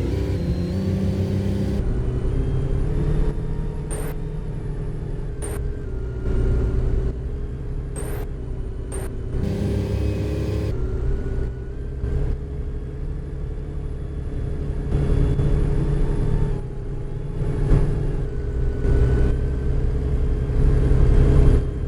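LiAZ-5292.65 city bus riding along, its engine and road noise giving a steady low rumble, with a few clicks and a short hiss about ten seconds in.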